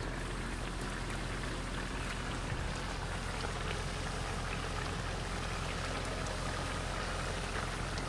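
Pork neck and pineapple simmering in their juices in a wide iron disc pan over coals: a steady sizzle with faint scattered pops.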